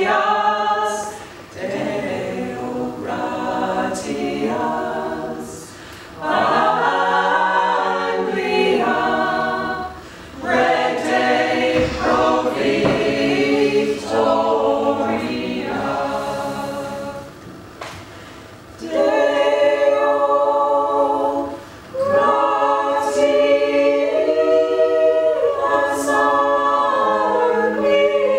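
Small mixed choir of men and women singing a cappella in harmony, in phrases broken by brief pauses every few seconds.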